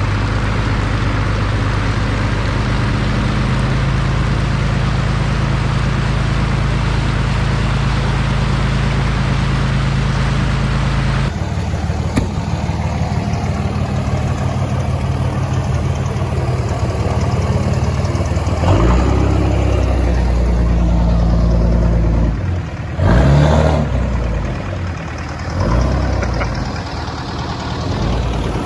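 Vehicle engine running steadily, with a sudden change in the sound about a third of the way in, then shifting revs and a couple of louder swells in the second half.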